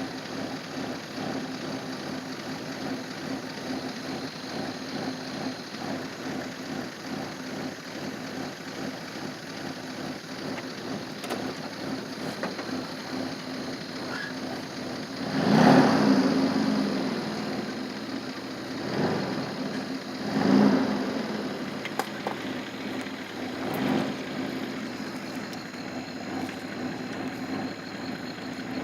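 Vehicle engine idling steadily with a low hum. About halfway through, a loud rumbling surge lasting a second or so stands out, followed by three weaker surges over the next several seconds.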